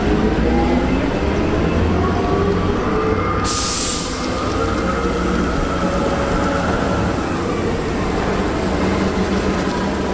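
Heavy diesel engine of a large wheeled amphibious military vehicle running as it drives slowly past, a deep rumble under a whine that rises and falls gently. A sudden hiss starts about a third of the way in and carries on under the engine.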